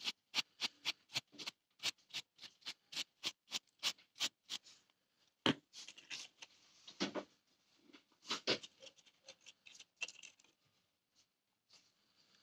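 Brush sweeping sand off a cast metal plate in quick, even strokes, about four a second, for the first four seconds or so, followed by a few scattered scrapes and taps.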